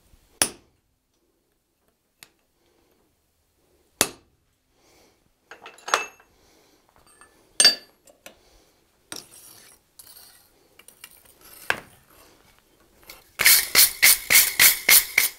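Hammer blows on a hand punch, striking pupils into the eye marks on a sheet-metal butterfly's wing lying on an anvil: single sharp strikes a couple of seconds apart. Near the end comes a quick run of about eight ringing hammer strikes on the anvil.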